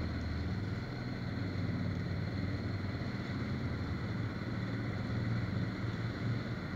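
Off-road vehicle engine running steadily while riding along a gravel trail.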